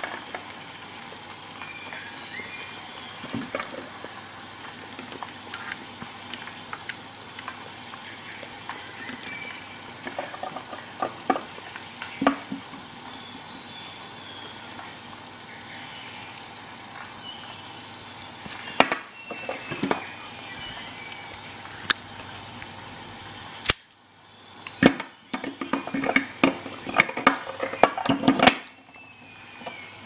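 Steel multi-tools being handled: scattered clicks and clacks as the folding pliers and handles are moved, with a quick run of knocks in the last few seconds. A faint steady high whine lies under it.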